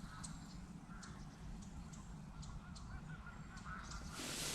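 Waterfowl honking faintly, several short calls in a row, over a steady low rumble of wind. A short rush of noise comes near the end.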